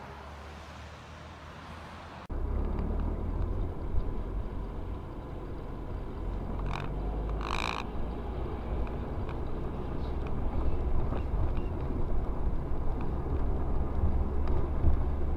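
Low, steady road and engine rumble inside a moving car, picked up by a dashcam. It gets much louder after a cut about two seconds in. Near the middle come two short tonal blasts about a second apart, the second one longer.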